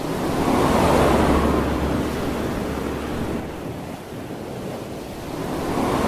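Wind rushing over the microphone of a moving car, over a low steady drone of the road. The rush swells about a second in and again near the end.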